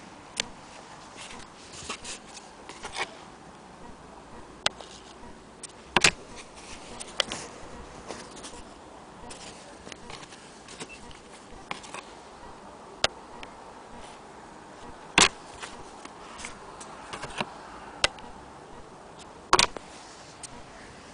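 Antique Willcox & Gibbs sewing machine being handled: scattered small clicks and knocks of its metal parts, three of them sharp and loud, over a faint steady hum.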